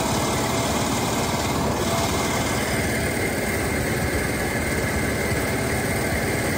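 Generator engine running steadily at a constant speed, powering the haul of a seine net.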